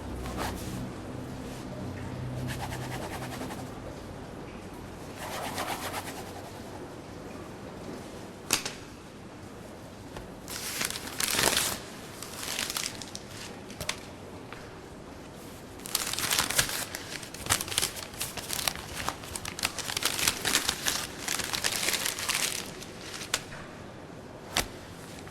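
Irregular bursts of crinkling, rustling noise with scattered sharp clicks, busiest in the second half.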